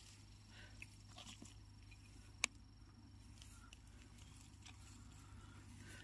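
Near silence: faint crackle of dry pine needles as a mushroom is pulled from the forest floor, with one sharp click about two and a half seconds in.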